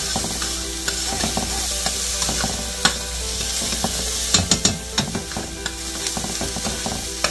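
Chopped onions sizzling in butter in a stainless steel pot as they cook down, with a spoon scraping and clicking against the pot as they are stirred; a quick run of sharper clicks about four and a half seconds in.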